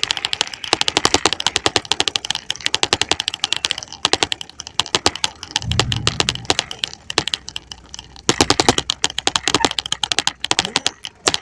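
Rapid, irregular clicking and rattling from a bicycle being ridden over a rough dirt road, with a brief low hum about six seconds in.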